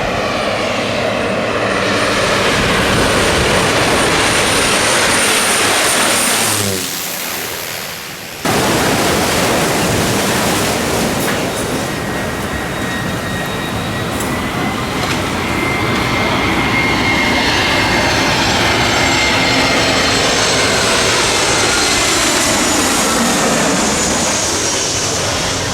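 Jet airliner's engines roaring as it passes low overhead on landing approach, the whine falling in pitch as it goes by. After a sudden cut about eight seconds in, a loud steady jet roar carries on, with a faint whine slowly rising.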